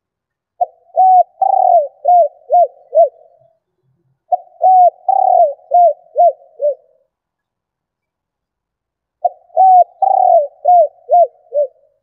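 Female spotted dove cooing: three phrases, each a quick run of five or six short coos with a longer, louder note among the first few, separated by pauses of one to a few seconds.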